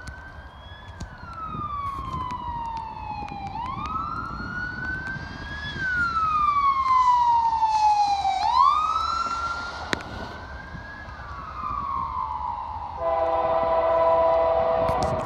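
An emergency vehicle's siren wailing, rising and falling slowly about every four seconds. About two seconds before the end it gives way to an approaching Canadian Pacific locomotive's horn, holding a chord of several notes.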